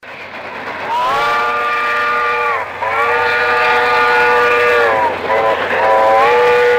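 Steam locomotive whistle blowing several long blasts, with a short one between, each sagging slightly in pitch as it ends. A rising hiss of steam leads into the first blast.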